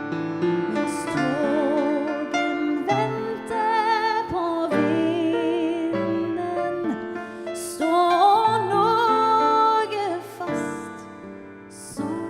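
A woman singing a Norwegian song with vibrato over piano accompaniment, holding long notes in the phrases near the middle and end.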